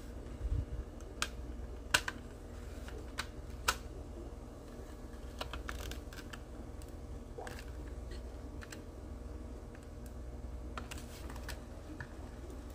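Small, scattered plastic clicks and taps as a plastic scale model car's chassis is handled and pressed into its body, with a soft thud about half a second in.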